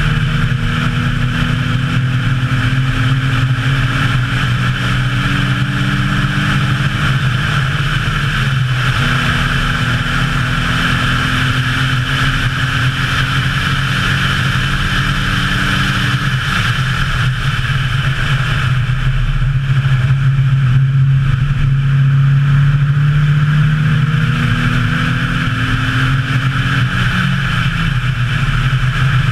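Nissan 350Z's 3.5-litre V6 engine pulling hard on track, its pitch climbing and then dropping at gear changes about eight and sixteen seconds in. After that it runs lower for a few seconds, climbs again, and drops near the end, over a steady hiss of wind and road noise.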